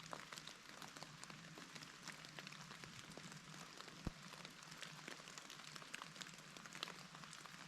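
Near silence with a faint scattered patter of melting snow dripping from the trees, and one soft tick about four seconds in.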